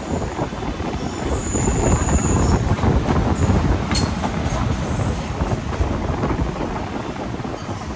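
Mumbai local electric train running on the track, heard from inside a coach: a steady rumble of wheels and carriage. A brief high squeal comes about one and a half seconds in, and a sharp click about halfway through.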